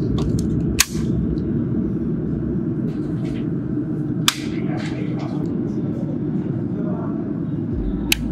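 Three sharp clicks of electrical switches being flipped on, a CHINT circuit breaker first, then a small panel circuit breaker, then a power-strip switch, powering up a laser welding machine. A steady low hum continues under them.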